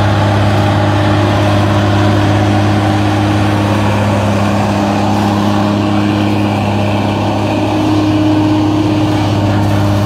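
Agrico 4+250 articulated tractor's diesel engine running steadily under load, a constant low drone, as it pulls a ripper through the soil.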